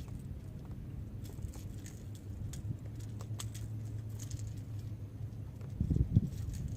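Light clicks and small metallic rattles of fishing gear being handled, over a steady low hum, with louder low bumps near the end.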